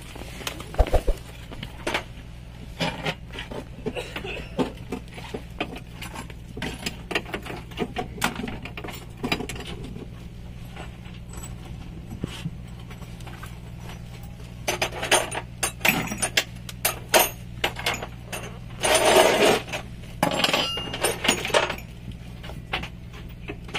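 Irregular metallic clinks and knocks of tools and parts being handled, busiest around fifteen and again around nineteen to twenty-one seconds in, over a steady low hum.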